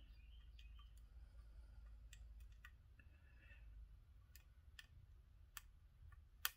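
Faint, scattered small clicks of through-hole tactile push buttons being pressed and snapped into their holes in a circuit board. The sharpest click comes near the end.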